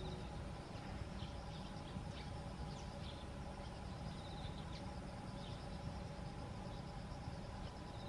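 Outdoor pondside ambience: a steady, pulsing insect trill with a few short, high bird chirps scattered through, over a low steady rumble and a faint steady hum.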